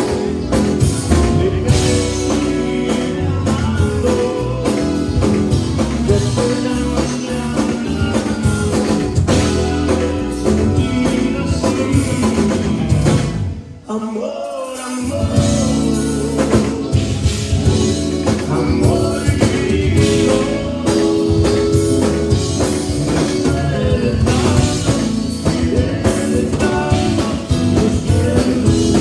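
Live Tejano conjunto band playing: button accordion, electric guitars, electric bass and drum kit, with a man singing into the microphone. Near the middle the band stops for about a second, then comes back in.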